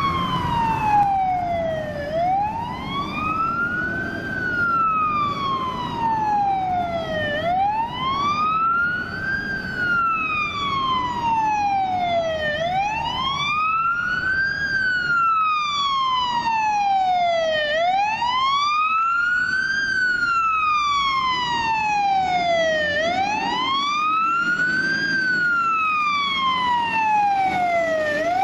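Fire engine siren on a slow wail. The pitch climbs for about two seconds and falls for about three, repeating roughly every five seconds, over a low engine rumble.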